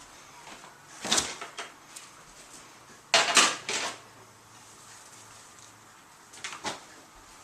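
Kitchen handling clatter from a bowl of marinating steak going into the refrigerator: three short bursts of knocks and clunks, the loudest about three seconds in.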